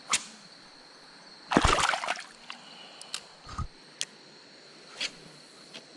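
A hand-held fish let go into a shallow creek: one splash of water lasting about half a second, then a few light knocks and clicks.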